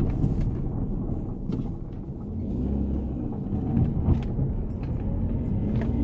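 Cabin sound of a Saturn Ion Redline on the move: its supercharged 2.0-litre four-cylinder engine running under a steady low rumble of road noise, with a few light clicks.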